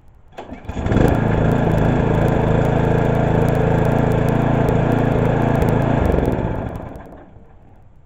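Toro TimeMaster lawn mower engine starting, running steadily for about five seconds, then cut off about six seconds in and winding down to a stop. The shutdown is the test of its newly rewired kill switch.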